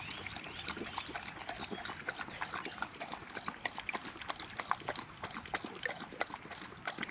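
A dog lapping water with quick, irregular wet laps, several a second.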